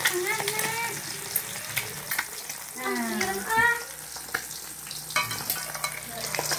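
An egg frying in hot oil in a steel wok, sizzling steadily with small crackles, while a metal spatula scrapes and taps against the wok.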